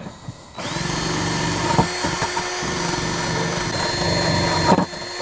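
Cordless drill spinning a wire wheel brush against the thermostat housing's gasket face, scrubbing the old sealing surface clean. It starts about half a second in, runs steadily for about four seconds, stops, then gives a short second burst near the end.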